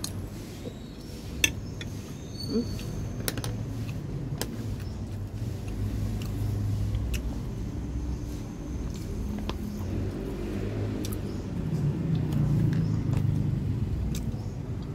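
A low, steady engine rumble like a running vehicle, swelling a little about two-thirds of the way through, with a few light clicks.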